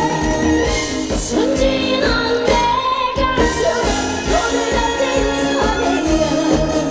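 Live trot song: a woman singing over a live band accompaniment.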